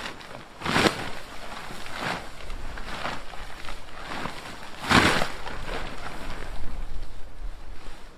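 Strong wind gusting and buffeting, with two heavy gusts about a second in and about five seconds in and lighter buffets between.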